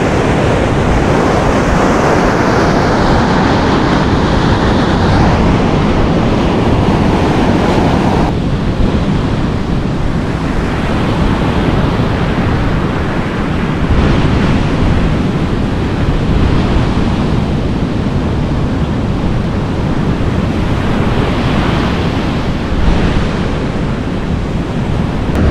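Ocean surf washing against the shore, with wind buffeting the microphone as a steady, loud noise.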